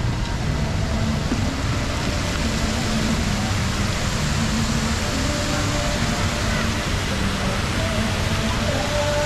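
Fountain water jetting and splashing: a steady rushing hiss with no let-up, with faint voices of people around it.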